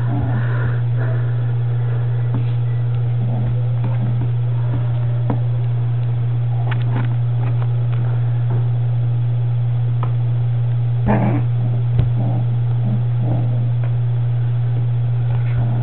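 A steady low hum throughout, with occasional faint puppy whimpers and small knocks over it; the clearest puppy sound comes about eleven seconds in.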